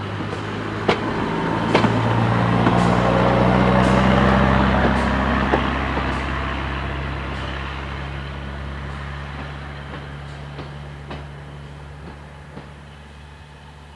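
Drewry railcar's engine running as the car passes and pulls away, growing louder to a peak about four seconds in, then fading steadily into the distance. Sharp clicks from its wheels crossing the rail joints and points, mostly in the first half.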